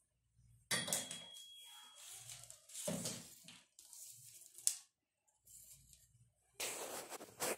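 Irregular handling noise: rustling and scraping in bursts, with a sharp knock near the middle and a louder stretch of rustling near the end.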